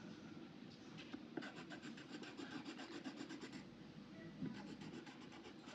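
Coloured pencil rubbing back and forth on paper in quick strokes, colouring in a drawing; the scratching comes in runs, with a pause in the middle.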